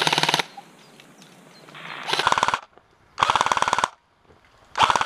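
Airsoft replica rifle firing short full-auto bursts of rapid, evenly spaced shots: four bursts, each under a second long, with brief pauses between them.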